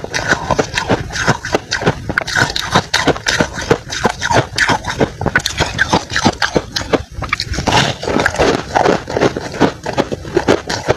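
Freezer frost being crunched and chewed in the mouth, picked up close by a clip-on lapel microphone: a steady run of crisp crunches, several a second.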